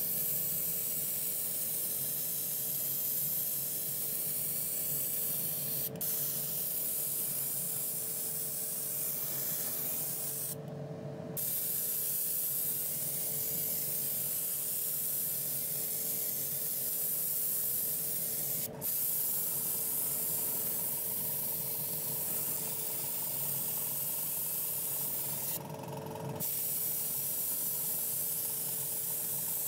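Airbrush spraying paint in a steady hiss that stops four times as the trigger is let go, twice for about a second. A steady hum runs underneath throughout.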